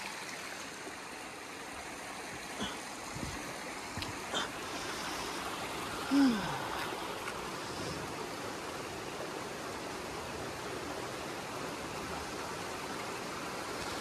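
Steady rush of spring water pouring out of the ground and cascading over rocks down a short slope into a creek. A few faint clicks come between two and four and a half seconds in, and a short low falling sound comes about six seconds in.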